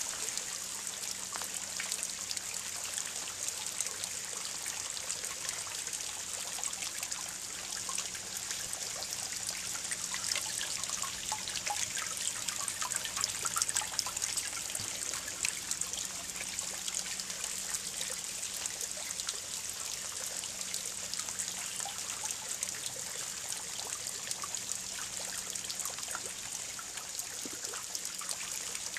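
Spring water trickling and splashing steadily into a stone-walled pond, with a fountain jet dribbling into the surface in many small splashes.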